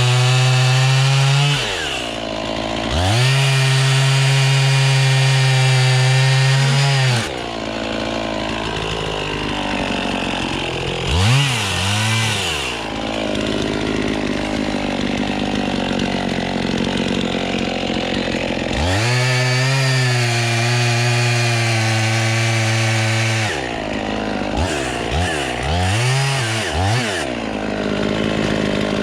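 Gas chainsaw bucking red oak logs into firewood rounds. The engine is held at full throttle through three long cuts, near the start, from about 3 to 7 seconds and from about 19 to 23 seconds. Between cuts it drops back and is revved up and down in quick blips.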